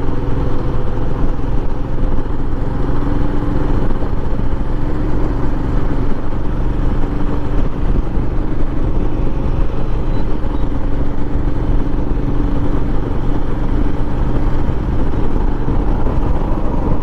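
Royal Enfield Himalayan's 411 cc single-cylinder engine running steadily at cruising speed, heard from the rider's position under heavy low wind rumble.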